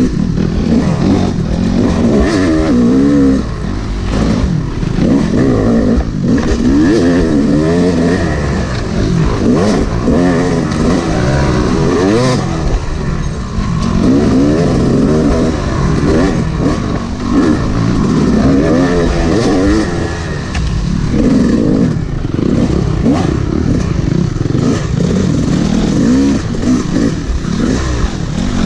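Yamaha YZ250 two-stroke dirt bike engine, heard from the bike itself, revving up and dropping back again and again under changing throttle as it climbs and winds along the trail.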